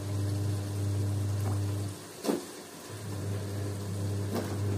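A steady low electrical hum cuts out for about a second around two seconds in, then comes back. Over it there are a few short sharp knocks as cubed potatoes are dropped into an aluminium pot.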